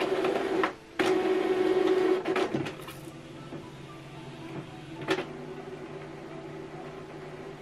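Canon Pixma TS5051 inkjet printer starting up after being switched on for the first time. Its internal mechanism runs in two loud stretches over the first couple of seconds, then settles to a lower steady hum, with a single sharp click about five seconds in.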